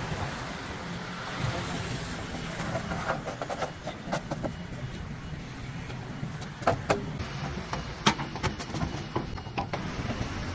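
Metal flood-barrier boards clanking and knocking as they are lowered into a gate's side channels and stacked on one another. Scattered knocks from about three seconds in, the two sharpest near the middle and a little later, over a steady outdoor background noise.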